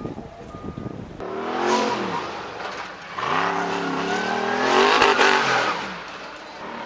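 Off-road racing buggy's engine revving hard under acceleration, its pitch climbing and falling with the throttle in two runs, the second longer and louder. For the first second, a reversing alarm beeps on and off.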